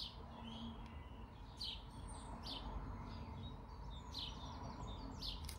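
Small birds chirping in the background: a string of short, high, downward-slurred chirps, roughly one a second, over a faint steady hum.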